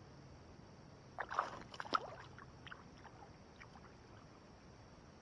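Knocks and rattles of gear handled on a fishing kayak: a short clatter about a second in, then a few light clicks.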